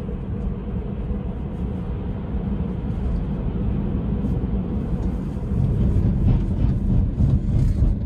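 Tyre and road rumble inside the cabin of a Tesla Model 3 on a snowy, icy highway, a steady low noise with no engine sound. It grows louder about five and a half seconds in as the car slows hard on the slippery ice.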